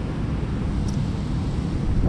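Wind buffeting the microphone over the steady rush of water flowing out of a dam spillway.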